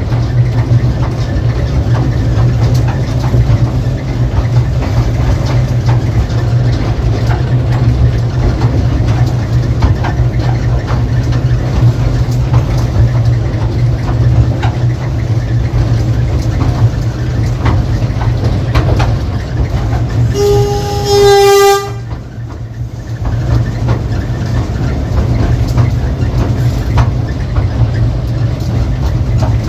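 Narrow-gauge train running steadily along the track, its engine a constant low hum, with a single horn blast of about a second and a half a little after twenty seconds in.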